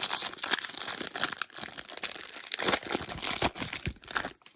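Wrapper of a baseball card pack crinkling and tearing as it is opened by hand: a dense run of crackles that stops abruptly near the end.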